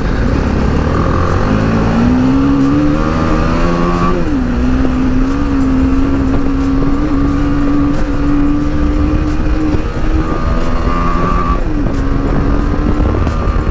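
BMW G310GS's single-cylinder engine under way on a dirt track. The revs climb for a couple of seconds, drop at a gear change about four seconds in, then hold steady, with a brief dip near the end, over wind rush on the microphone.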